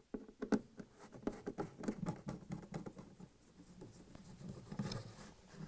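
Nut driver backing out the screws of a refrigerator's sheet-metal rear access panel: a quick, irregular run of small clicks and scrapes.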